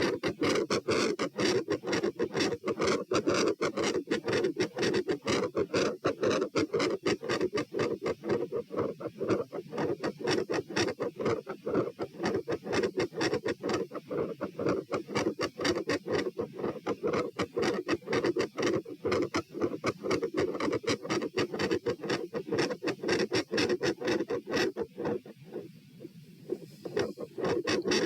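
Fast heartbeat heard through a stethoscope at the pulmonic area of the chest, a rapid, regular train of loud lub-dub beats. The rate is raised by exercise, around 130 beats a minute, and deep breathing does not slow it.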